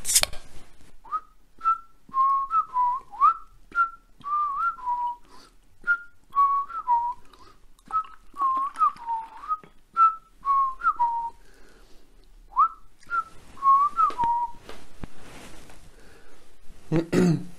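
A man whistling a slow tune of short gliding notes, with scattered small clicks and clinks of a glass bottle and glass as beer is poured. The whistling stops about three seconds before a short vocal sound near the end.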